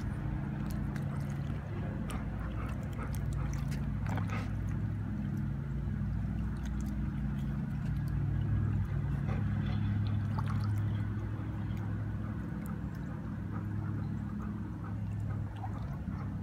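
A steady low motor hum, with scattered faint clicks during the first four seconds.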